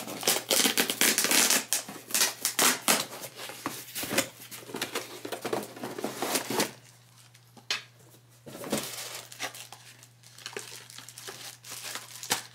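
Cardboard shipping box being torn open by hand, with paper and packaging crinkling: dense tearing and rustling for about the first six seconds, then quieter with a few sharp clicks and scattered rustles.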